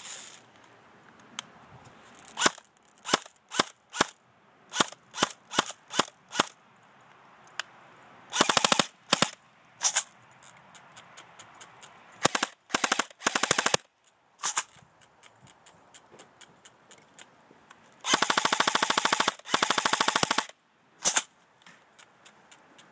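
G&G Combat Machine M4 electric airsoft gun firing on a half-charged 9.6 V battery. It first fires a string of single semi-auto shots about half a second apart, then short full-auto bursts. Near the end comes a long full-auto burst of about two seconds, then one last single shot.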